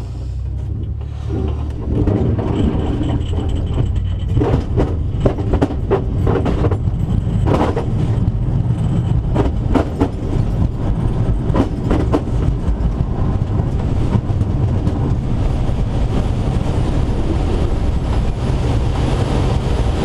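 Schweizer 2-33A glider's main wheel rolling and rumbling over cracked asphalt on an aerotow takeoff roll, with irregular knocks as it crosses the cracks. The rumble swells about two seconds in as the glider starts moving.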